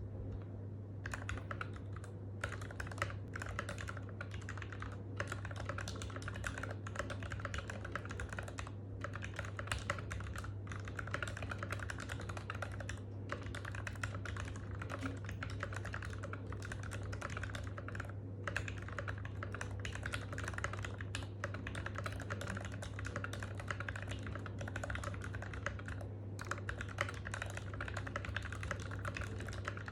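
Typing on an NK65 v2 Aluminum Edition mechanical keyboard with lubed Gateron Ink Black V2 linear switches and Cherry-profile PBT keycaps: rapid, continuous keystrokes that start about a second in, with short pauses. A steady low hum runs underneath.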